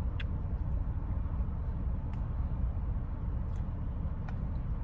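Steady low rumble of a car, heard from inside the cabin, with a few faint small clicks.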